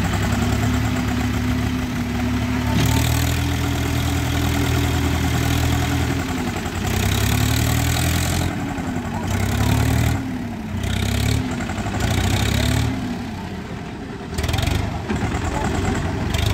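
Tractor diesel engines working hard under heavy load, pulling a loaded trolley through mud. The engine note holds steady for several seconds, then revs up and down repeatedly, and eases off near the end.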